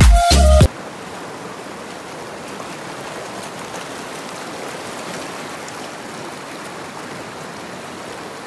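Mountain river rushing over boulders in shallow white-water rapids, a steady, even rush of water. Background music with a beat cuts off suddenly under a second in.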